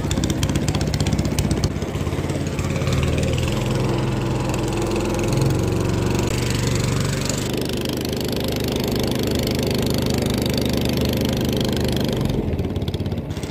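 Small engine of a wooden passenger boat running steadily under way: a low, even hum with fast regular firing pulses, its pitch shifting slightly about five seconds in.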